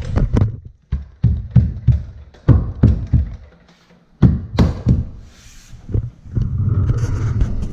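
Irregular knocks and thumps from a hardwood stair tread being pressed down by hand and stepped on, bedding it into its construction adhesive against the riser.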